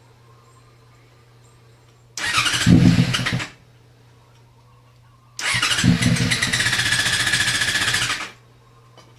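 Yamaha FZ6 inline-four being cranked on its electric starter in two tries, a short one of about a second and a longer one of about three seconds. The engine does not catch and run, the sign of its no-start fault, which the owner puts down to fuel injector or throttle problems.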